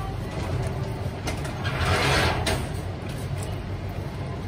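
A steady low mechanical hum, with a loud hiss lasting about a second about two seconds in.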